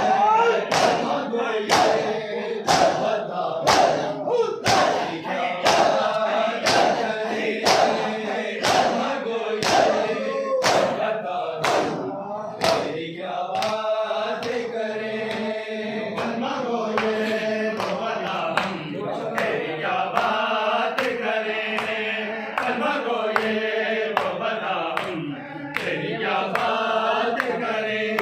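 A group of men chanting a noha in unison while beating their chests in matam, the hand slaps falling together about two a second. About halfway through the chest-beating stops and the chanting goes on alone.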